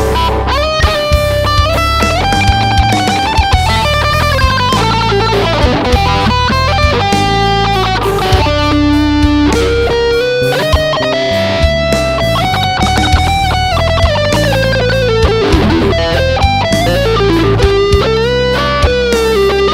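Squier Bullet electric guitar with HSS pickups, played through a Boss ME-25 multi-effects unit: a melodic lead line with slides, bends and vibrato over steady low bass notes and regular sharp beats.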